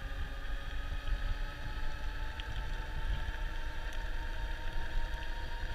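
Rad RunnerPlus electric cargo bike cruising at steady speed: its geared rear hub motor gives a steady high whine over tyre noise and wind rumbling on the handlebar-mounted microphone.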